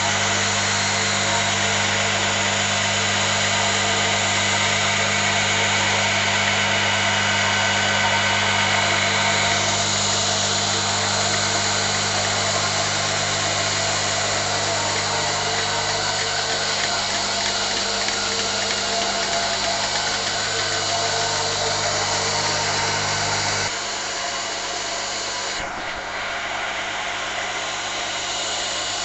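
Four-bucket milking machine's vacuum pump unit running: a steady mechanical hum under a loud hiss of air. About 24 seconds in, the low hum drops away and the sound gets slightly quieter.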